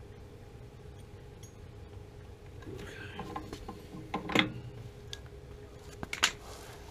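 A metal hand tool working on a water heater's Honeywell gas valve: scraping and rattling of metal on metal, then two sharp clanks, one a little past four seconds in and one about six seconds in.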